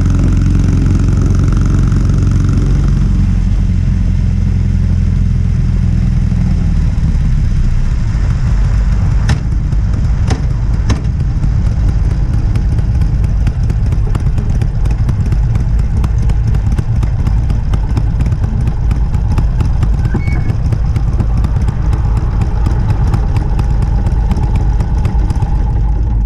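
Harley-Davidson Sportster 883's air-cooled V-twin running on its stock exhaust. It holds a steady low, even note for the first several seconds, then turns rougher and noisier from about seven seconds in, with a few sharp clicks around ten seconds in.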